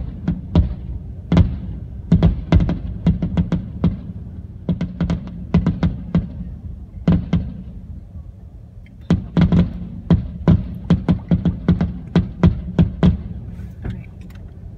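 Fireworks display: aerial shells bursting in quick strings of sharp bangs and crackles, several a second, over a low rumble. The bangs pause briefly about eight seconds in and again near the end.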